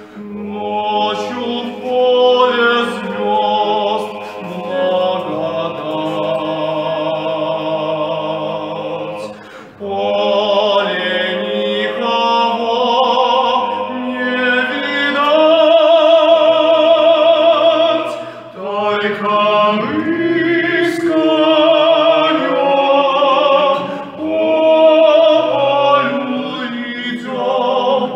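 Two men singing a folk song unaccompanied in harmony, in long held phrases with vibrato. They break briefly for breath about a third and two-thirds of the way through.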